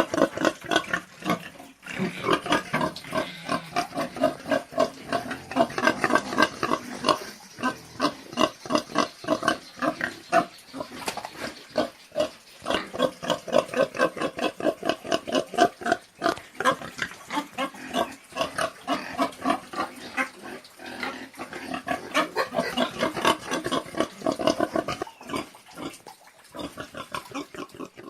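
Pigs grunting in a fast, continuous run of short calls, several a second, starting abruptly.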